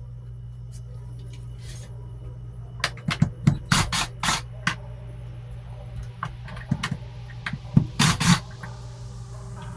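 Clicks, knocks and scrapes of an old 12-volt incandescent cabin light fixture being taken apart by hand, in two clusters, over a steady low hum.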